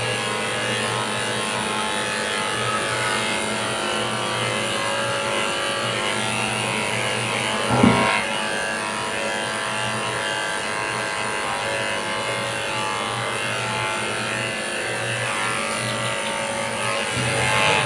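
Corded electric dog clippers buzzing steadily as they shave a Pomeranian's coat, easing off briefly now and then. About eight seconds in there is a short thump.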